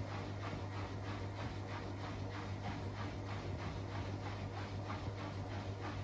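Samsung 9 kg front-loading washing machine running mid-cycle: a steady low hum with a quick, even rhythm of short swishing ticks, about five a second.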